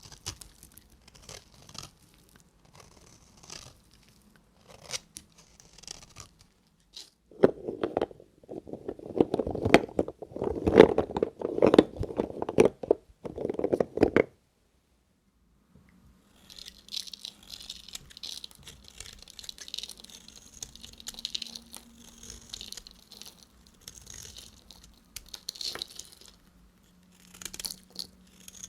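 A knife cutting into dry bar soap: faint crisp cuts at first, then about six seconds of loud crunching, a short break, and lighter, scratchy scraping through the rest.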